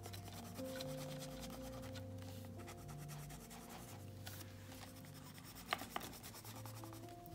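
A water-soluble coloured pencil scratching and rubbing on paper as it colours in an area.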